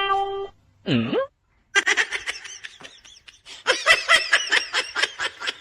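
A person laughing hard in quick repeated bursts, building up about two seconds in and heaviest in the second half. A short chime tone cuts off about half a second in, and a brief swooping vocal sound comes just before the laughter.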